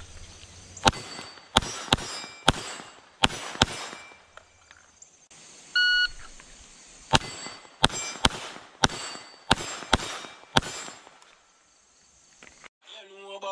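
Gunshots fired in two quick strings, each string started by the short electronic beep of a shot timer; the second beep comes about six seconds in, and the second string is longer, about eight or nine shots. Music starts right at the end.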